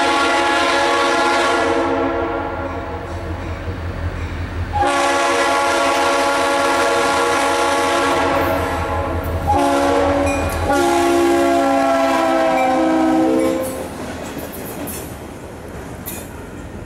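Air horn of an EMD SD40-2 diesel locomotive sounding the grade-crossing signal, long, long, short, long, a chord of several notes over the low rumble of its diesel engine. The horn stops about three seconds before the end, leaving the engine and faint wheel clicks on the rails.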